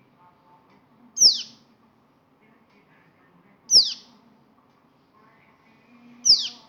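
A bird calling three times, about two and a half seconds apart: each call a short, loud, high note that drops sharply in pitch.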